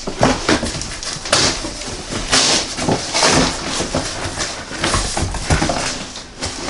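Cardboard shipping box being opened and handled: flaps and packing scraping and rustling in irregular bursts, with a few sharp knocks.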